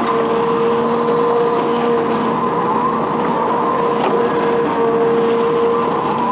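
Hitachi Zaxis 210F amphibious excavator running: a steady diesel engine drone with a constant hydraulic whine over it, and a few faint knocks.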